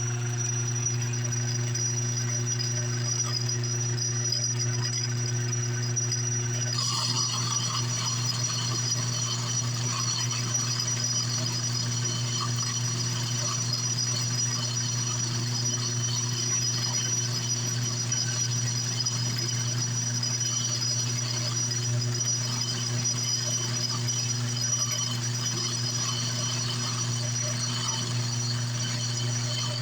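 Homemade metal lathe running steadily: a constant motor hum with a thin high whine over it. About seven seconds in, a harsher high-pitched hiss joins in and carries on.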